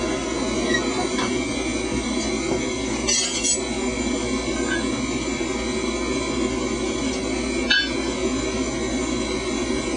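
Steady low rushing workshop noise throughout, with a brief hissy clink about three seconds in and a faint metallic tick near eight seconds as tools are handled around the red-hot iron bloom on the anvil; no hammer blows yet.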